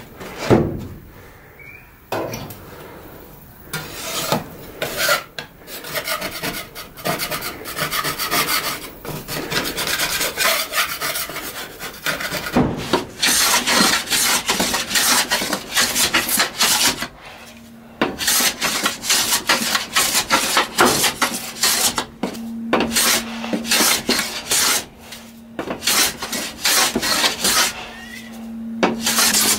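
Hand plane shaving old white paint off a wooden tabletop in quick, repeated scraping strokes. The strokes start a few seconds in and stop briefly a few times.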